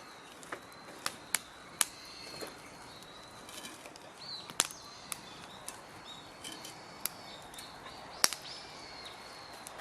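Wood campfire crackling, with sharp irregular pops, the loudest about halfway through and near the end, while birds chirp in the background.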